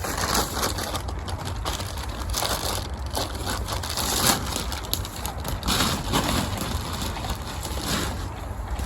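Irregular crunching and rustling, uneven strokes with no steady rhythm, over a low rumble.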